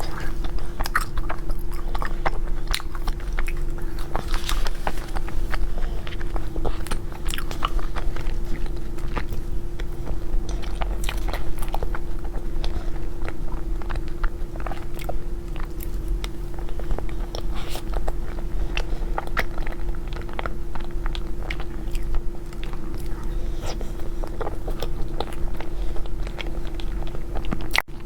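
Close-miked eating: wet chewing and small mouth clicks while cake is bitten and chewed, irregular and continuous, over a steady faint hum.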